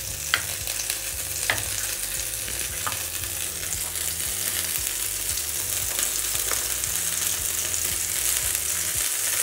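Homemade butter sizzling as it is spread over the hot plate of an electric sandwich maker: a steady hiss, with a few light clicks about half a second, a second and a half, three seconds and six and a half seconds in.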